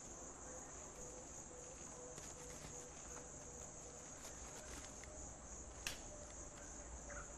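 Faint, steady high-pitched insect buzz, with a soft low note repeating evenly through it and a single sharp click about six seconds in.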